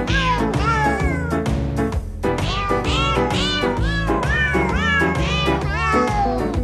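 A Christmas tune 'sung' by cat meows, each short meow set to a note of the melody over an instrumental backing, several meows a second.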